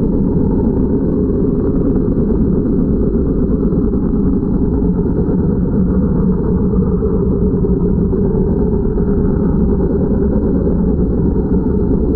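Underwater high-pressure washer jet blasting a boat hull, heard through the water as a steady low rumble.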